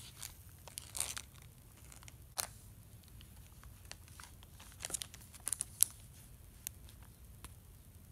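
Clear plastic packaging of chopstick packs crinkling and rustling as they are handled: scattered short crinkles and clicks, a cluster about a second in and a louder cluster around five to six seconds in.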